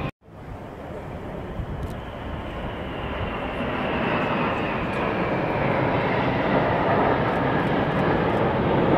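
Engines of a formation of military aircraft flying over, a broad rumble that builds steadily louder as they approach, with a faint, slowly falling whine.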